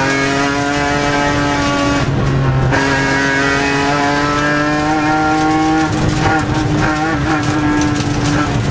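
BMW E46 M3 race car's straight-six engine pulling hard under racing load, heard from inside the stripped cabin. It eases briefly about two seconds in. The pitch then climbs slowly and wavers unevenly near the end through the corners.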